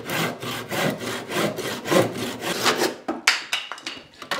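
Handsaw cutting through a softwood seat blank, in quick back-and-forth strokes about two and a half a second. After about three seconds the strokes become sparser and quieter.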